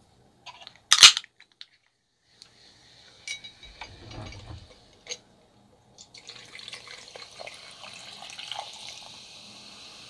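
A Sprite can cracked open with a sharp pop about a second in, followed by a few light clinks. From about six seconds in, the soda is poured over ice in a glass mug and fizzes with a steady hiss.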